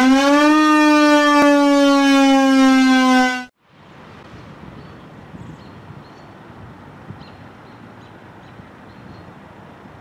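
Federal Signal 2001-SRN electromechanical siren, close up, sounding a loud steady wail whose pitch slowly sags, then cutting off suddenly about three and a half seconds in. Quiet outdoor background noise follows.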